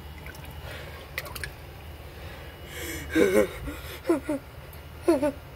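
A person's voice making short, high-pitched cries with a wavering pitch, several in quick succession starting about three seconds in. Before that there are only a low hum and a few faint clicks.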